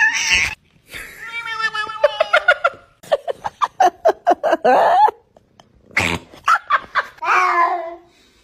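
A cat making short, duck-like quacking calls, mixed with a person laughing.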